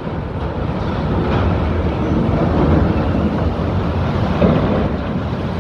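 Large cruise ship manoeuvring close alongside the quay: a steady low rumble, with wind noise on the microphone and a brief louder swell about four and a half seconds in.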